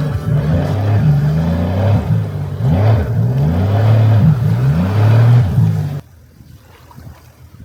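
Sea-Doo jet ski engine running hard, its pitch rising and falling again and again as the throttle is worked. About six seconds in it drops abruptly to faint wind and water noise.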